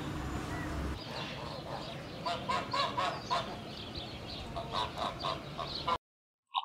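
A flock of domestic geese honking over and over, many calls overlapping. The sound cuts off about six seconds in, and a single glass clink follows near the end.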